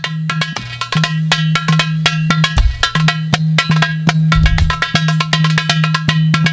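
Percussion-led devotional sholawat music: a fast, dense pattern of hand-drum and block-like strikes over a steady held low note, with a few deep drum booms about two seconds apart.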